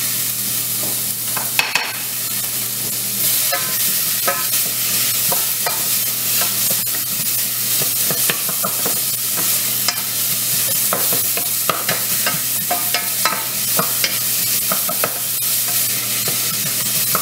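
Diced white onions sautéing in a stainless steel saucepan: a steady sizzle, with frequent scrapes and taps of a wooden slotted spatula stirring them against the pan. A steady low hum runs underneath.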